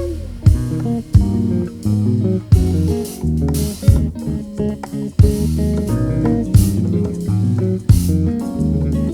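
Live band playing an instrumental jam, with electric bass carrying a prominent line under guitar, keys and drum hits at a steady groove.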